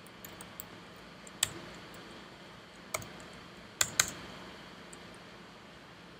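Scattered keystrokes on a computer keyboard: a few light taps at first, then single sharper strokes about a second and a half and three seconds in, and two close together near four seconds, over a faint steady hum.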